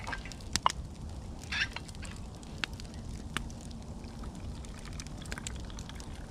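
Tea being poured from a steel thermos into a cup, over a campfire crackling with scattered sharp pops. A sharp click about half a second in.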